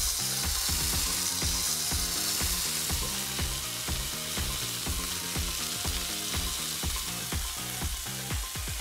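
Marinated skirt steak searing in a very hot cast iron skillet: a steady, loud sizzle.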